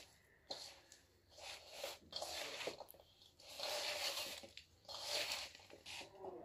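Hands mixing spice-coated radish sticks in a steel bowl: repeated squishing, rustling bursts about once a second as the pieces are tossed and turned.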